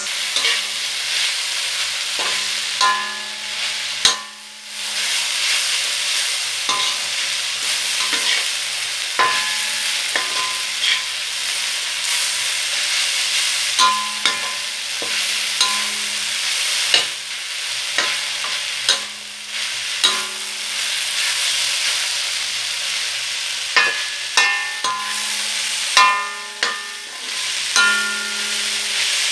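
Pork and shredded ginger sizzling in a hot metal wok while a metal spatula stirs and scrapes through it, with sharp clanks of the spatula against the wok every second or two that ring on briefly.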